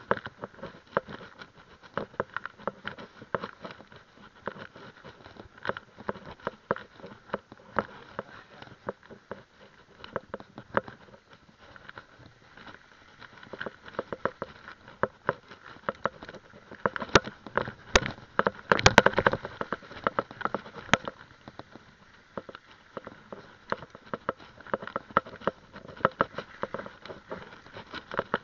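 Mountain bike rattling and clattering over a rough dirt and gravel trail: a constant stream of small knocks and ticks, with a run of harder knocks about two-thirds of the way through.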